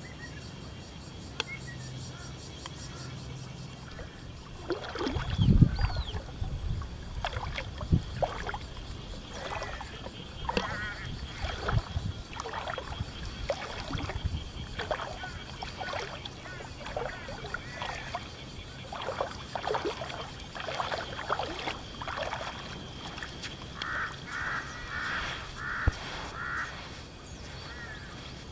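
Birds calling again and again in short, arching calls, with a quick run of five or six calls near the end, over a steady faint high hum. A low thump about five seconds in is the loudest sound.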